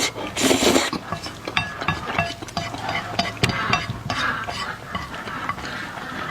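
Eating utensils stirring and clinking against a bowl of food, a busy run of short clinks and scrapes, some with a brief ring.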